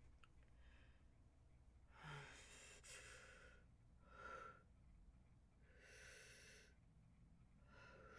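A person breathing heavily through the build-up to a sneeze: four breaths, each lasting up to about a second and a half, the first starting about two seconds in and the last still going at the end.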